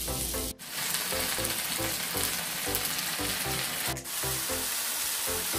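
Carrot strips, then sliced shiitake mushrooms, sizzling in oil in a frying pan, with background music playing a steady repeating note pattern. The sound drops out briefly about half a second in and again about four seconds in.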